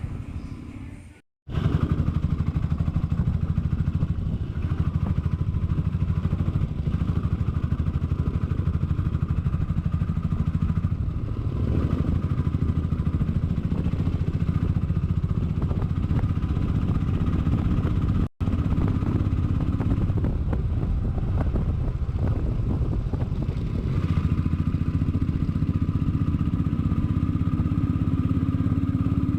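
Motorcycle engine running at road speed with wind and road noise, heard while riding. The sound cuts out briefly twice, and the engine note climbs slowly near the end.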